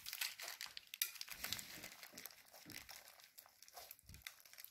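Hands kneading and squeezing slime mixed with sprinkles and small beads: quiet, irregular crackles and squishes that fade toward the end.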